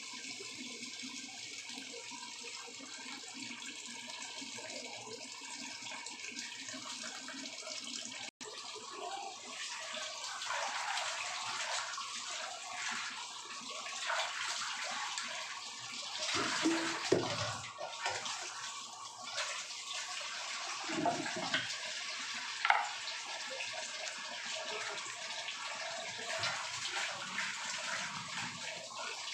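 Tap water running into a sink while garlic chive flower stalks are rinsed by hand. A steady stream for the first few seconds, then uneven splashing with a few louder knocks.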